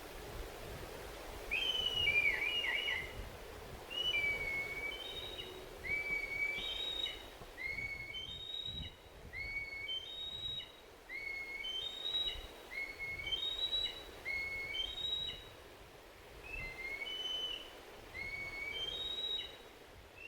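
A songbird singing a long run of short, clear whistled notes, alternating lower and higher, against faint outdoor background noise.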